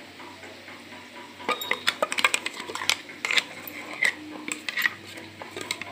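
A steel spoon clinking and scraping against a bowl as thick yogurt is stirred. A quick run of sharp clicks and knocks begins about a second and a half in.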